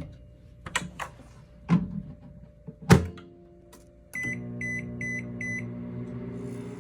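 Microwave oven: a few clicks and knocks, the loudest about three seconds in, then four short high beeps as the oven starts running with a steady hum.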